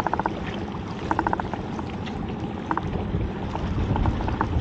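Spinning fishing reel clicking in several quick short bursts as a hooked fish is played on the rod, over a steady wash of wind and water.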